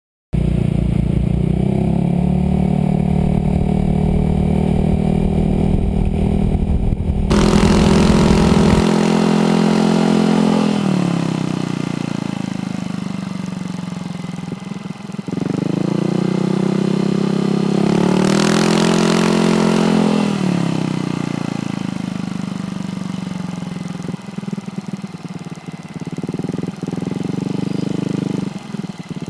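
Small motorcycle or scooter engine running through an Exos R6 aftermarket exhaust with the silencer insert removed, revved up and let fall back twice: first about seven seconds in, then again from about fifteen to twenty seconds in.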